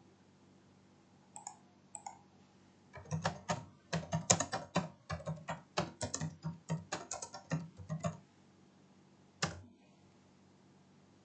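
Typing on a computer keyboard. A couple of single clicks come first, then a quick run of keystrokes lasting about five seconds, and one last click near the end.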